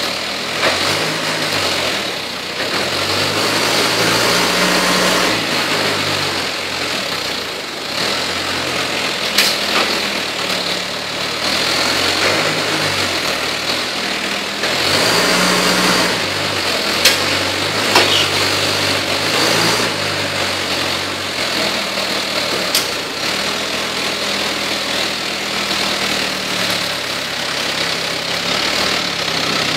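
Toyota 3.5 forklift engine running, its revs stepping up and down again and again while it handles bales with its bale clamp. A few sharp knocks come through now and then.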